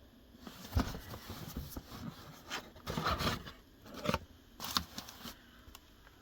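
Shoe packaging being handled: a run of scraping and rubbing noises with a few sharp knocks, typical of a cardboard shoebox being opened and its contents taken out.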